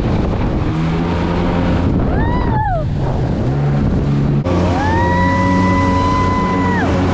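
Jet ski engines running over water. A whine rises and falls briefly, then rises again about four and a half seconds in, holds steady and drops away near the end as the throttle is opened and released.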